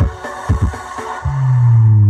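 Loud electronic dance music played through a large outdoor sound system during a sound check: a few short bass hits, then, a little past halfway, a deep sustained bass note that slides slowly down in pitch.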